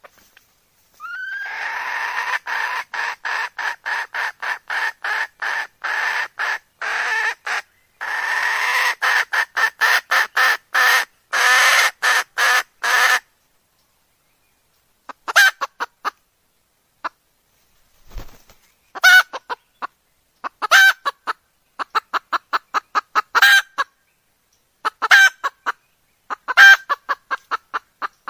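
A junglefowl hen cackling: a long, fast run of repeated clucking notes lasting about twelve seconds, then after a short pause, shorter clusters of quick notes, each capped by a louder accented note. This is the call of a hen in breeding condition, used as a lure to draw wild junglefowl cocks.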